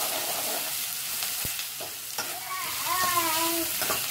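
Chopped onions sizzling in hot oil in a steel kadhai, with a metal spoon stirring and scraping against the pan. About three seconds in, a three-month-old baby briefly coos.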